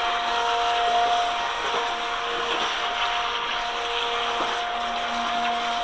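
Radio-controlled jet boat's small electric motor whining at a steady pitch as the boat runs along, over the rush of the brook's flowing water.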